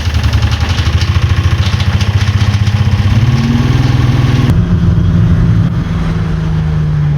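Car engine idling with a rapid, lumpy pulse; about four and a half seconds in, the sound changes abruptly and settles into a smoother, steady note.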